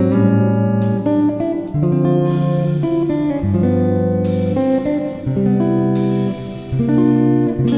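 Background music led by a plucked guitar, playing chords that change every second or so.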